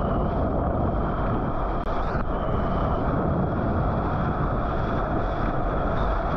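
Steady rush of seawater and wind noise on the microphone of a point-of-view camera carried by a surfer on a surfboard riding an ocean wave.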